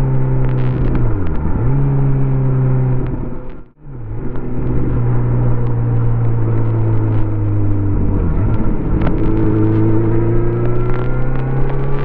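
Stock 2018 Kawasaki Z900RS's inline-four engine and exhaust running under way at a steady note, dipping briefly in pitch about a second and a half in and again around eight seconds, then rising slightly. Near four seconds the sound cuts out for an instant, a glitch in the recording.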